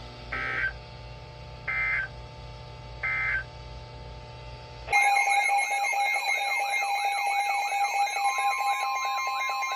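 Three short data bursts of the Emergency Alert System digital code, each about a third of a second long and spaced about a second and a half apart, mark the end of a broadcast warning message. About five seconds in, a loud warbling alert tone with a steady pitch beneath it starts and holds, announcing the next warning.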